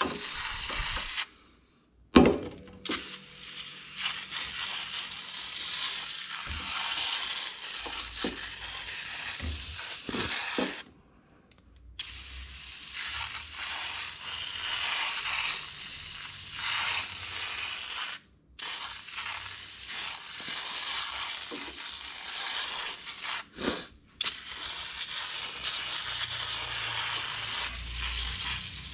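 Aerosol can of foaming coil cleaner spraying onto an ATV radiator in long hissing runs, broken by a few short pauses where the nozzle is let go. There is one sharp click about two seconds in.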